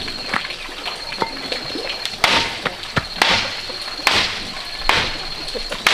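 Hammer blows on a bamboo fence rail: five sharp strikes about a second apart, starting about two seconds in, with a few lighter knocks before them.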